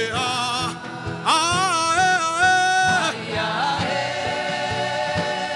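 Gospel worship music: a voice sings long held notes with vibrato over sustained keyboard chords and a steady beat of about two a second.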